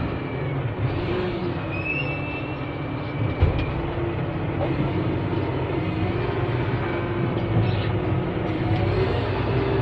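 Diesel engines of heavy earthmoving machinery running steadily, with a single knock about three and a half seconds in and the engine note rising slightly near the end.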